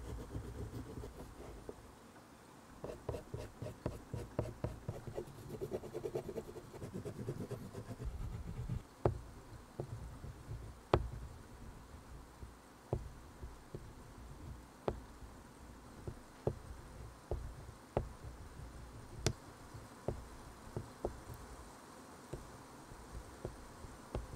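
Oil pastel stick rubbing and scratching on drawing paper in quick strokes, then, from about eight seconds in, sharp taps roughly once a second as the pastel tip is dabbed onto the paper.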